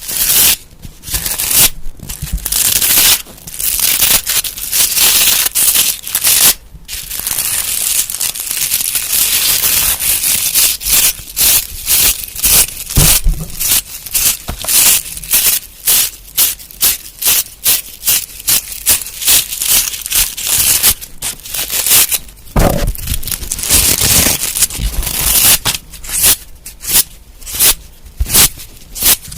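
Close-miked ASMR trigger sounds: rapid, irregular scratching and rustling strokes on an object, in short runs with brief pauses, and a duller thud a little past the middle.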